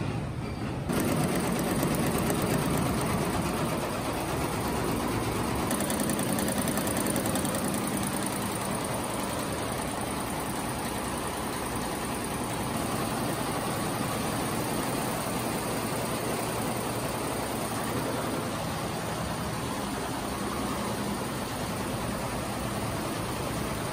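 Multi-head industrial embroidery machines running, a steady dense mechanical clatter of many needle heads stitching at once, starting about a second in.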